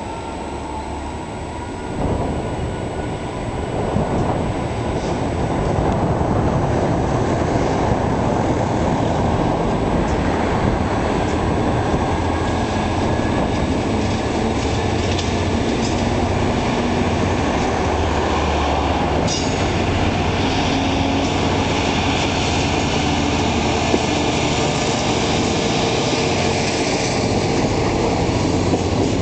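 Diesel freight locomotive approaching, its engine running and growing louder over the first several seconds. Loaded open freight wagons then roll steadily past, with wheels clattering over the track and a faint wheel squeal.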